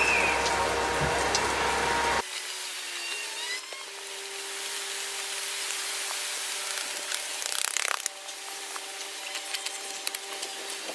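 Electric 220-volt drainage pump running with a steady hum, stopping abruptly about two seconds in; a fainter steady tone and hiss go on after it, with a few small clicks.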